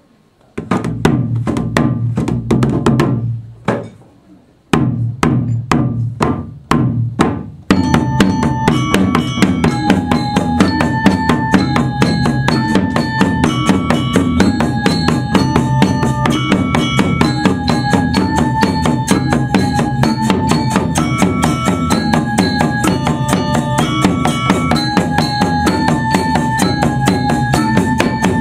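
Balinese gamelan ensemble playing: kendang drums with bronze metallophones and gongs. It opens with loud full-ensemble strikes broken by short pauses, then about eight seconds in settles into fast continuous playing with a quick even pulse and a repeating metallophone melody.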